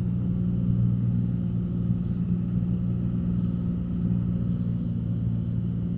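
Cessna 182's engine and propeller droning steadily in flight, a low even hum with a couple of steady tones.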